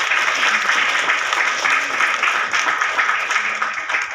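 A crowd applauding: dense, steady clapping from the theatre audience and the cast on stage.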